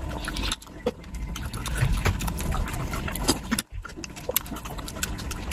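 Close-up eating sounds: chewing and lip-smacking with many quick wet clicks and crunches of food in the mouth, briefly cut off about two thirds of the way through.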